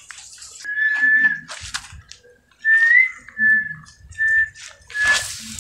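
A series of about six short, clear whistled notes at one high pitch, a few rising slightly at the end, with brief noises between them.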